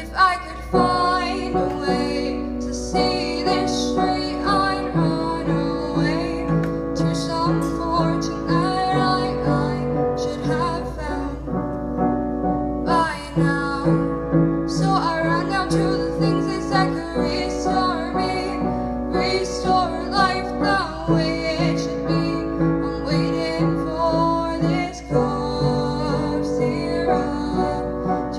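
Music: a song with a singing voice over piano chords that change about every four seconds.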